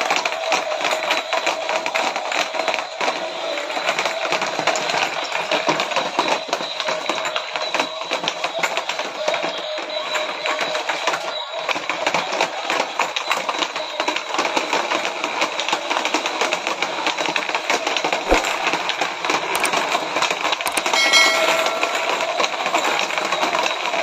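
Several small battery-powered remote-control stunt cars running together: a steady whir of their electric motors with constant rapid plastic clattering as they tumble and knock small plastic balls about. About 21 seconds in, a brief chime of a few clear tones sounds.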